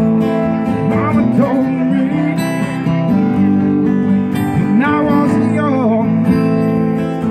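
Two acoustic guitars played live through a small PA, steady strummed chords with a wavering, bending melody line over them.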